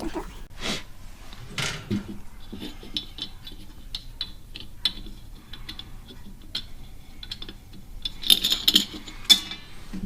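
Light metallic clinks, taps and knocks from metal parts being handled in a car's engine bay, scattered at first and louder and busier near the end.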